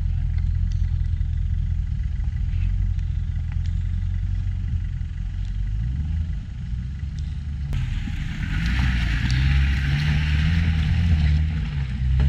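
A Land Rover's engine running under load, its revs rising and falling. About eight seconds in, a hiss joins it for a few seconds.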